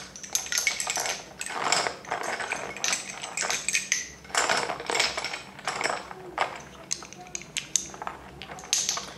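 Lace-making bobbins clicking and clacking against one another in quick, irregular knocks as pairs are crossed and twisted in cloth stitch.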